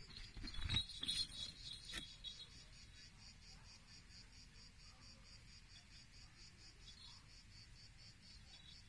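High-pitched insect chirping in an even rhythm of about five pulses a second, with a few knocks and rustles in the first two seconds.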